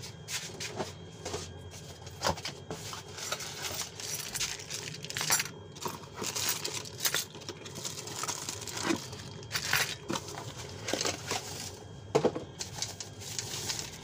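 A cardboard box being opened and an electric door lock unpacked: irregular rustling of cardboard and crinkling of a plastic bag, with scattered clicks and light knocks as the steel lock and its parts are handled.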